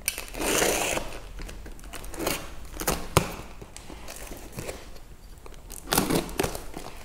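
Utility knife slicing through the packing tape on a cardboard parcel, a short scraping hiss in the first second, followed by scattered knocks and rustling of tape and cardboard as the box is handled and the tape is pulled.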